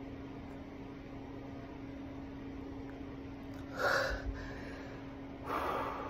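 Two heavy, breathy exhalations from a man tired from push-ups, about four seconds in and again near the end, the first with a soft low thump. A steady hum runs underneath.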